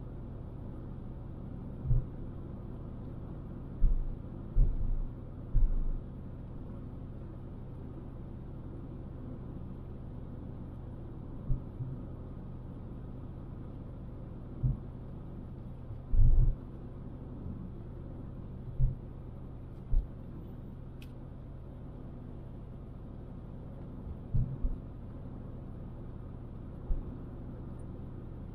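Steady low rumble of a car driving along a road, with a constant low hum. About ten short low thumps stand out above it at uneven intervals.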